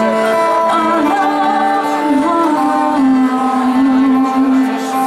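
Live acoustic music: a woman singing long held notes over strummed acoustic guitars.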